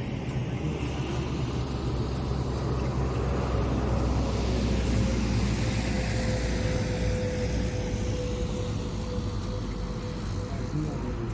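A motor vehicle passing on the road, its engine and tyre noise swelling to a peak about halfway through and then easing off, with a steady whine in the middle of the pass.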